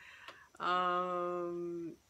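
A woman's voice holding one long syllable at a steady pitch for over a second, starting about half a second in.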